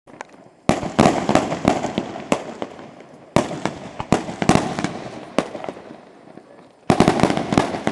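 Firecrackers going off in three rapid volleys. Each volley is a quick run of sharp bangs that fades over a couple of seconds: the first comes about a second in, the next just before the middle, and the last near the end.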